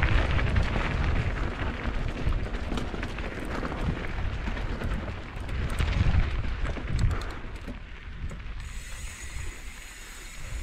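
Wind buffeting the microphone of a rider on the move, a rough rumble with scattered rattles and crunches from the trail, easing off about three-quarters of the way through.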